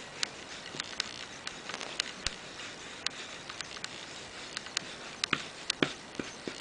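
Wax crayon scribbling on paper: irregular taps and scratches of quick colouring strokes, with a few sharper taps about five to six seconds in.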